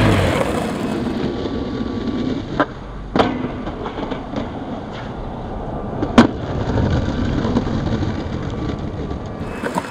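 Skateboard wheels rolling over rough concrete, with sharp clacks of the board: two close together about three seconds in and the loudest about six seconds in, as the skater pops and lands on and off a low metal rail.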